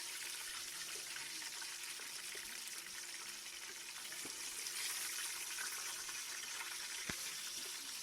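Hot ghee sizzling in a cooking pan after the chicken pieces have been fried and removed: a steady, crackling frying hiss. One sharp click about seven seconds in.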